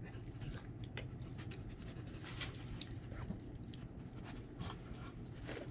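German Shepherd panting, with a few faint scattered clicks.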